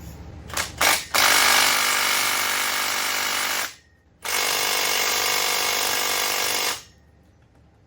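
Power impact wrench running: two quick blips, then two long bursts of about two and a half seconds each with a short break between, spinning off the bolts of rusted brake backing plates on an axle.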